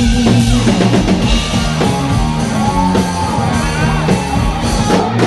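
Live heavy rock band: distorted electric guitars playing a riff over a drum kit, with a lead guitar bending notes up and down near the end.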